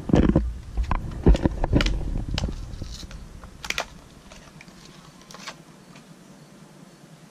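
Handling noise: a close, loud run of clicks, knocks and low thumps as fishing gear and line spools are picked up and moved about, thinning out after about four seconds to a few faint clicks.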